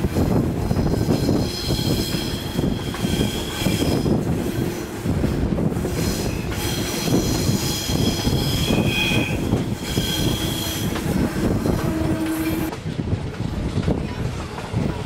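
Passenger coaches of a steam-hauled train rolling through a curve, heard from a carriage window: a dense rumble of wheels on the track, with wheel flanges squealing on and off in high tones.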